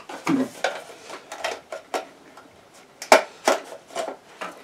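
A cardboard collectible-figure box and its plastic insert being handled as the vinyl figure is packed back in: irregular rustling and crinkling with scattered clicks and taps, the sharpest a little after three seconds in.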